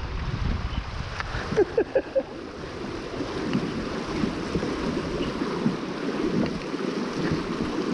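River water splashing and lapping, with wind buffeting the microphone in low rumbles. A few sharp clicks or knocks come between one and two seconds in.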